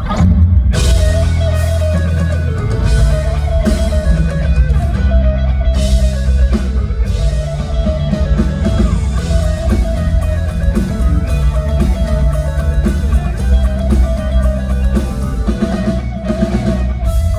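A live band starts a song suddenly and plays an instrumental passage with guitar and a drum kit.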